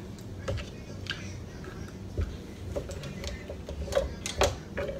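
Seafood being handled and dipped while eating: irregular small clicks and taps of fingers, food and shells against the griddle tray and sauce bowl, busiest about four seconds in.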